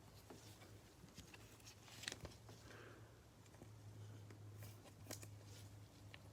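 Near silence with faint clicks and rustles of chromium trading cards being handled, over a low steady hum.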